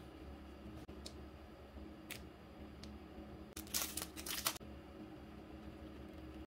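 Clear plastic packaging sleeve crinkling as hands handle it, a crackly burst of about a second near the middle, after a few faint light clicks of paper being handled.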